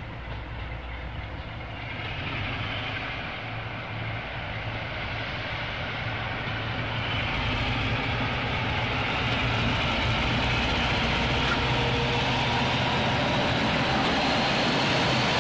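A British Rail Class 45/46 'Peak' diesel locomotive with a Sulzer twelve-cylinder engine runs slowly towards the listener hauling coaches. Its steady engine drone and the rumble of wheels on rail grow louder as it draws near and begins to pass.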